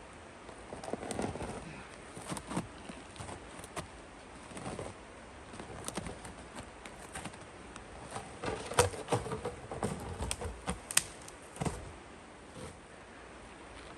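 Irregular knocks, snaps and crackles, scattered and uneven in strength, with the sharpest ones about nine and eleven seconds in; the chainsaw is no longer running.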